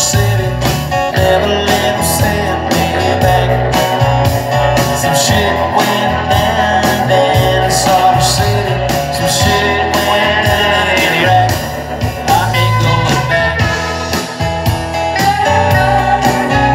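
Live country-rock band playing: electric guitars and bass over a steady beat.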